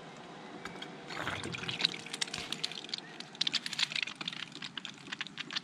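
Crinkling of a wet paper shop towel wiping overflowed coolant from around the expansion tank, many small crackles. Underneath, a faint steady hum from the BMW N52's electric coolant pump, running to bleed air from the cooling system.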